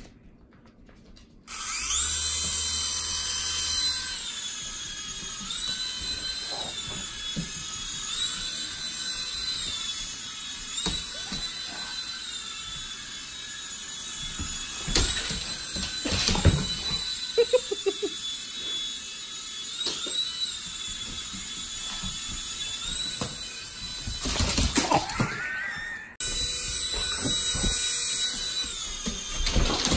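Small electric motor and spinning rotor blades of a Marvel Black Panther levitating flying toy, a high buzzing whine whose pitch steps up and down as the motor speeds up and slows. The whine stops briefly near the end and starts again, with a few knocks along the way.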